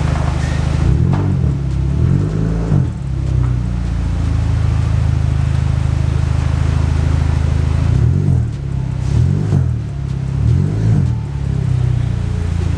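Audi A4's engine idling as the car creeps forward into a garage. The low drone swoops up and down in pitch a handful of times: twice near the start and three times about two-thirds of the way through.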